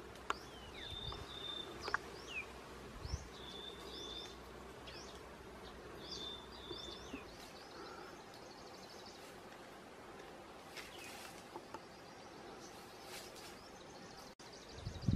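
Wild birds singing: a short phrase of quick sweeping chirps ending in a high, level whistle, repeated three times in the first half, then fainter twittering. Two faint snaps in the first two seconds.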